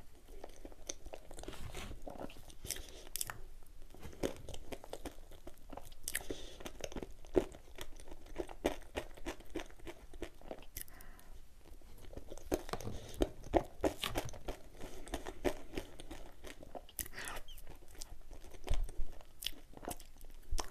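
A person eating chocolate whipped cream off a knife: chewing and mouth smacks, many short clicks.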